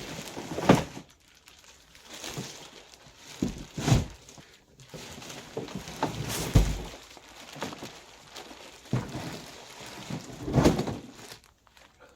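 Cardboard packaging and plastic wrap rustling and scraping as a kids' 12-volt ride-on toy truck is lifted out of its box, with several knocks and thuds, the heaviest about six and a half seconds in.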